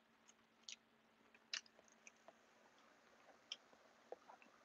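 Near silence with a few faint, short clicks scattered through it.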